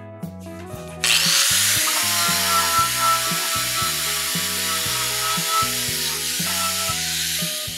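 Background music with a repeating bass line, with a loud, steady rushing noise from a workshop machine that starts suddenly about a second in and dies away near the end.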